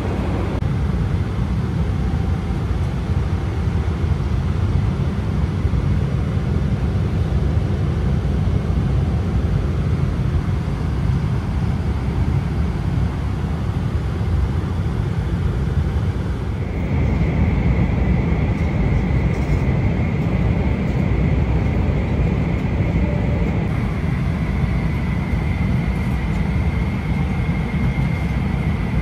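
Boeing 777-300ER cabin noise: a steady, deep rumble of engines and airflow. A little past halfway the rumble grows louder and a steady high whine joins it.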